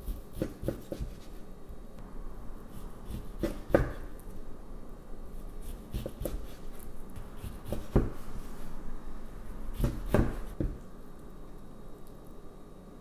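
Kitchen knife slicing through a sesame-coated kimbap roll, each cut ending in a sharp knock of the blade on the wooden cutting board: about five cuts a couple of seconds apart.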